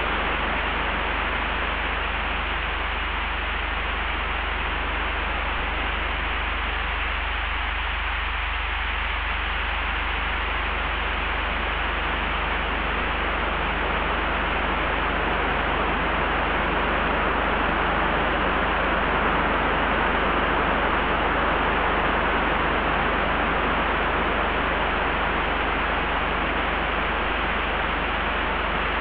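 Layered wind ambience: a steady rushing hiss over a deep, constant low rumble, swelling slightly about halfway and easing again.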